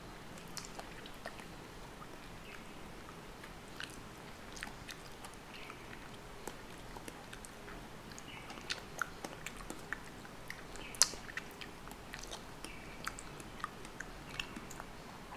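Fingers picking apart an orange, pulling pith and membrane off the segments: small wet clicks and tearing sounds, sparse at first and more frequent later, with one sharper click about eleven seconds in.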